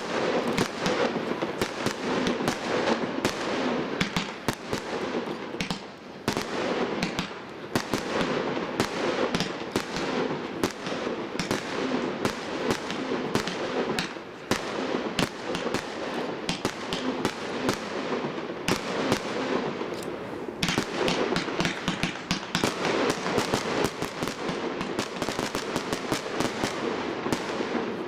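Consumer firework cake (battery) firing a rapid, continuous series of shots: comets launch and burst with sharp bangs in quick succession. There are brief lulls about a fifth of the way in and again about two-thirds through.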